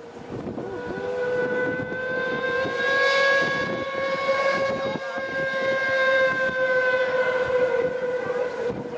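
Steam whistle of the paddle steamer Schiller sounding one long, steady blast. It starts about a second in with a slight rise in pitch and holds for about eight seconds.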